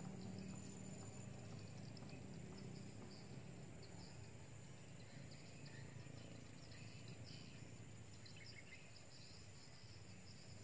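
Faint riverside ambience: insects and scattered bird chirps over a low, steady hum.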